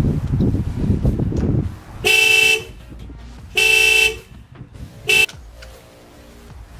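A car horn honks three times: two half-second honks about a second and a half apart, then a short one. It is the Hyundai Genesis Coupe's alarm sounding as the car gets power, which the owner blames for draining the battery. A low rumbling noise comes before the honks.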